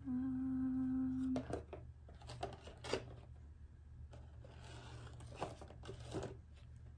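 A woman hums a steady, thinking "hmm" on one pitch for about a second and a half, then faint rustling and a few short clicks of things being handled on a table.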